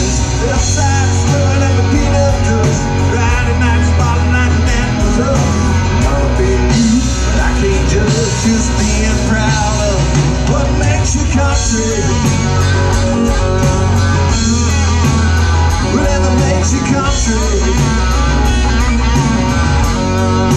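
Live country-rock band playing: acoustic guitar, electric guitar and bass over a steady beat, with singing in places.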